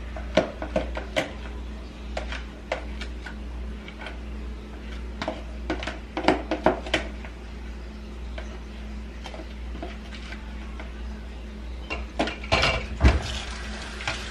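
A metal spoon clinking and scraping against a mixing bowl as a cheesecake topping is spooned over a crust in a pan. The clicks come in scattered clusters, with a louder clatter near the end, over a steady low hum.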